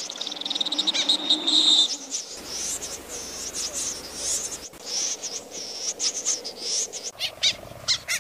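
Snipe calling: a rapid high trill for the first two seconds, then a string of short, high-pitched arching calls repeated at uneven intervals.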